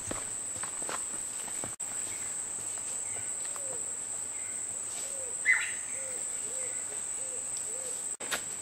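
Steady, high insect drone of crickets, with a bird's low hooting call repeated about twice a second through the middle, and one sharper, brighter call about five and a half seconds in.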